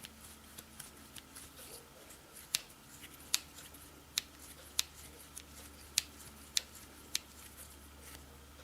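Victorinox Pioneer Swiss Army knife's blades and tools being worked open and shut, snapping closed with sharp metal clicks about seven times, roughly one every 0.6 to 1 s, amid faint handling. One tool's action is a bit rough, seeming to rub on the main blade.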